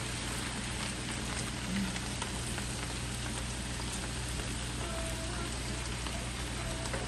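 Shredded cabbage frying in bacon grease in a skillet: a steady sizzle as it cooks down, stirred with a wooden spatula.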